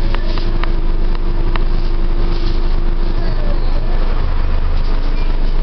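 Bus engine and cabin noise from inside a running bus: a steady low rumble with a few clicks and rattles in the first two seconds. The engine note shifts about four seconds in.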